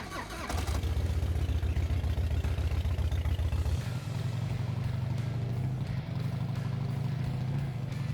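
Harley-Davidson Softail's V-twin engine running with a strong low pulsing beat that comes in about half a second in; its note shifts a little higher about four seconds in.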